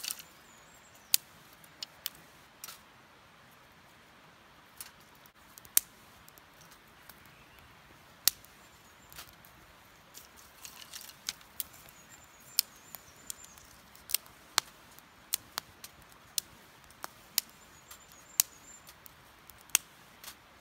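Wood fire crackling in a small wood-burning camp stove: sharp, irregular pops and snaps, about one or two a second, some much louder than others.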